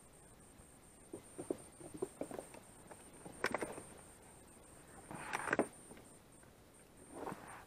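Handling noises in an inflatable PVC boat: a run of light knocks, then two short splashing, rustling flurries as a freshly caught fish is dropped into a bucket of fish, and a weaker one near the end.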